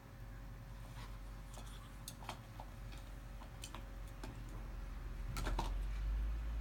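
Scattered clicks and taps of a Cairn Terrier's teeth on the hard plastic of a GoBone toy as she mouths and chews it, with a louder cluster of clicks near the end, over a faint steady hum.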